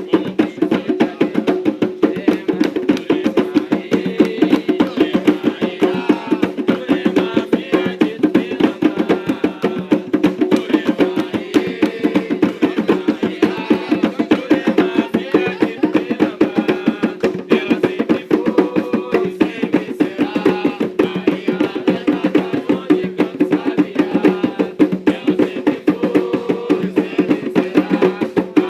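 Hand drums playing a fast, steady ritual rhythm, as in Umbanda drumming, with no singing over it.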